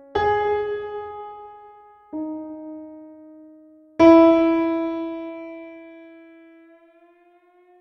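Background music of slow piano notes: three notes struck about two seconds apart, each fading away, the last ringing out longest.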